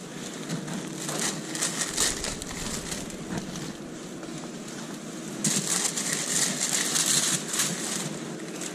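Rustling and crinkling handling noise over the low hum of a shop interior, growing louder and denser from about five and a half seconds in.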